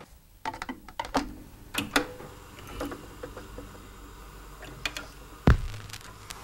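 A vinyl record being handled and set on a turntable: scattered light clicks and knocks of the disc and turntable parts, with one heavy low thump about five and a half seconds in.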